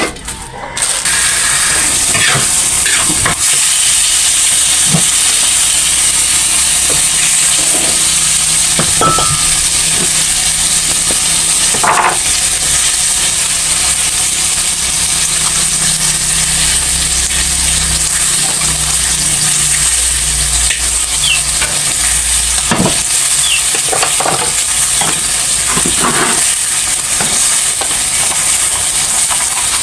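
Food frying in hot oil: a steady sizzle that starts about a second in, with a few short clicks scattered through it.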